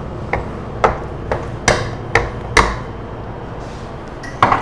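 A hand-held dough docker's metal pins stabbed again and again through a sheet of dough onto a stone counter, sharp knocks about two a second, six or so strokes that stop a little past the middle. One louder knock follows near the end.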